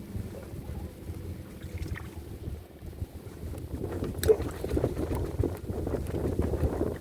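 Low, uneven rumbling noise of wind buffeting the microphone, growing louder about halfway through, with a sharp click about four seconds in.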